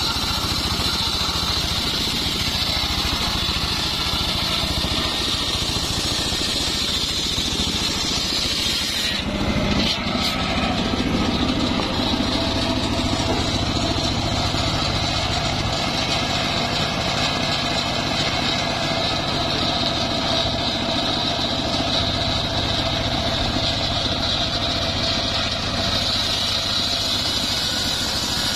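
Engine-driven homemade circular sawmill running steadily, its large blade ripping a trembesi (rain tree) log lengthwise. About nine seconds in the sound changes abruptly, the high whine falling back and a lower drone coming forward.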